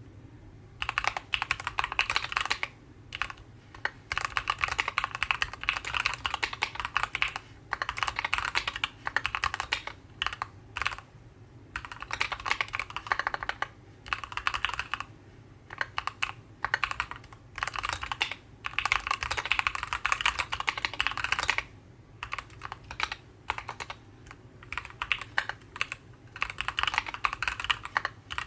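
Typing on a Keychron Q11 mechanical keyboard with Gateron Oilking linear switches and ABS keycaps: quick runs of keystrokes in bursts of a few seconds with short pauses between. The bottom-out is fairly loud, giving a light, knocking clack.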